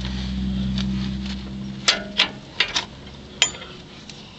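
Handling clicks and knocks as the camera is set down and a bungee cord is unhooked and moved, over a low steady hum that fades out about halfway through.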